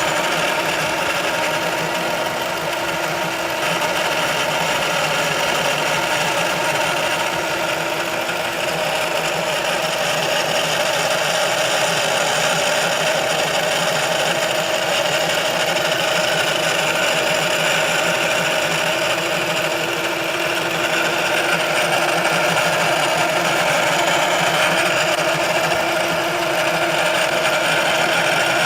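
Steady mechanical running noise from a Ford Focus with several constant tones, unchanging throughout: the abnormal noise the owner traces to the transmission control module (TCM).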